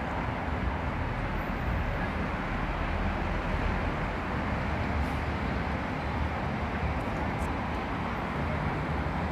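Steady street noise of vehicle engines and traffic: a low engine rumble under an even hiss, with no siren sounding.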